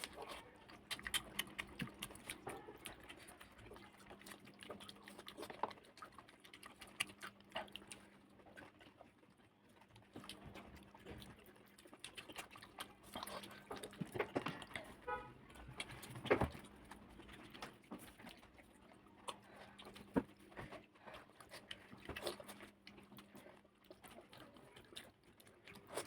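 Eating sounds at close range: scattered crunches, chews and small clicks of food and utensils as pani puri and snacks are eaten, over a faint steady hum.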